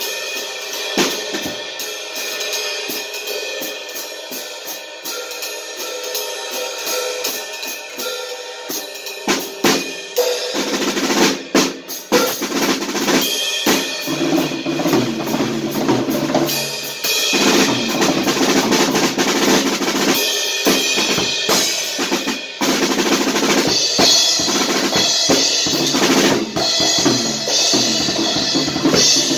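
Acoustic drum kit being played: lighter, busy stick work on snare and cymbals at first, then from about ten seconds in fuller, louder playing with bass drum and ringing cymbals.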